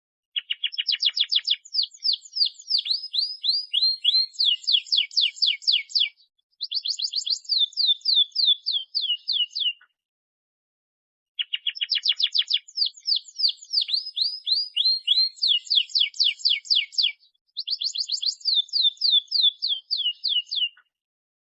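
Domestic canary singing a loud, energetic song of long rapid trills, fast runs of repeated notes that sweep down in pitch, broken by short pauses; the same sequence of phrases comes round twice. It is a 'gacor' canary's song of the kind played to young or reluctant canaries to set them singing and to teach them the song.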